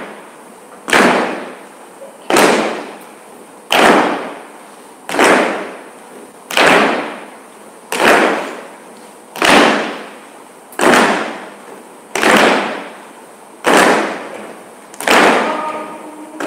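A group of performers stamping in unison on a wooden stage floor, one heavy stamp about every one and a half seconds, each ringing out in the hall's reverberation.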